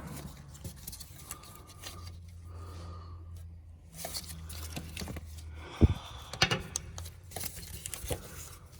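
Scattered clicks, light knocks and scraping from hands handling a chafed wiring harness under a vehicle, with a low steady hum for a few seconds in the middle.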